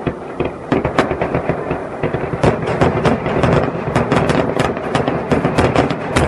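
Aerial fireworks display: a rapid volley of shell bursts and launch bangs, several a second, over a continuous rumble. The bangs grow denser about two and a half seconds in.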